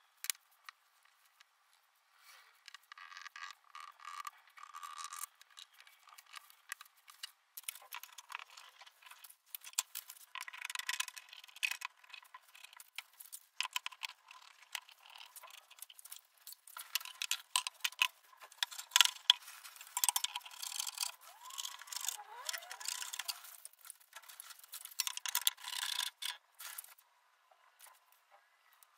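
Steel bar clamps and F-clamps being handled and set around a pine frame on a workbench: metal clinks and rattles, clamp jaws scraping along their bars, and wooden strips knocking, in irregular bursts that are busiest a little past the middle.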